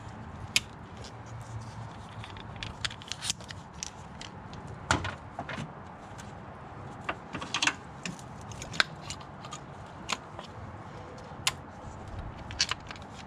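Plastic quick-connect hose fittings being pushed together and handled by hand, with irregular sharp clicks and small knocks spread throughout.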